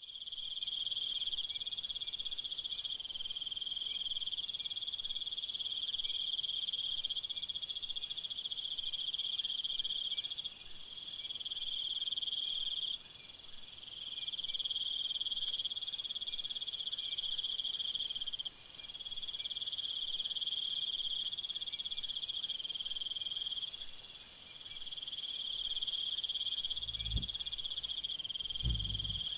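Chorus of crickets: several layered, steady, high-pitched trills that go on without a pause, with two brief low thumps near the end.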